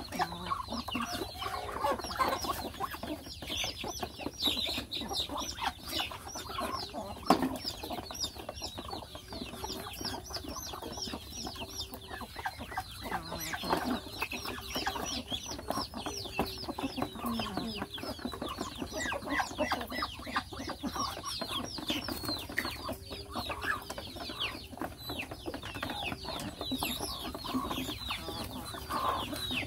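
Chickens at a feed tray clucking, with a constant stream of high, quick, falling peeps from young birds over the lower clucks.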